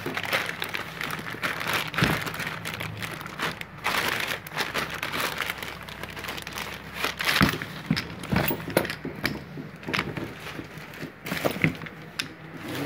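Clear plastic wrapping crinkling and rustling as a MIG welding torch and its coiled cable are handled in their cardboard box, with irregular sharp crackles.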